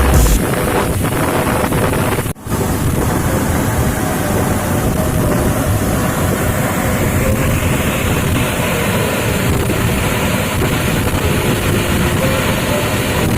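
Waterfall rushing: a steady, loud wash of falling water that cuts out for a split second about two seconds in.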